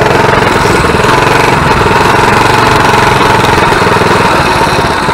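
Coleman mini bike's small single-cylinder engine running loud and steady under way, with a rapid, even firing beat; it eases off slightly near the end.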